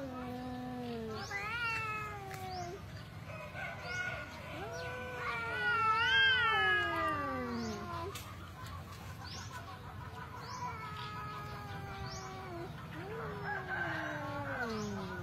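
Two tabby cats yowling at each other in a face-off: a series of long drawn-out wails that rise and fall in pitch, the loudest about six seconds in. This is the threat yowling of a cat standoff before a fight.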